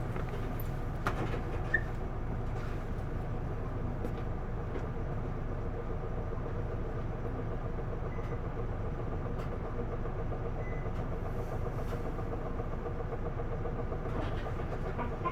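Isuzu Erga city bus's diesel engine and drivetrain running steadily under way, heard from inside the cabin, with a steady whine over the rumble. This bus is one that makes an unusual noise. A single brief click comes about two seconds in.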